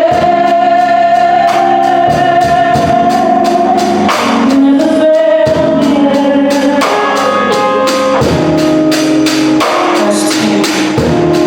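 Gospel worship song: voices singing together over instrumental accompaniment with a steady beat.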